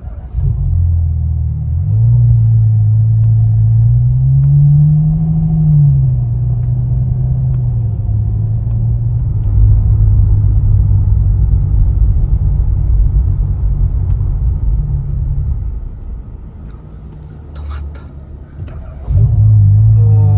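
Ferrari 812 Superfast's naturally aspirated V12 restarting automatically after a stop-start shutdown, a mild start, then idling and running at low revs, its pitch rising and falling briefly about four seconds in. About sixteen seconds in the engine shuts off again, and it restarts near the end.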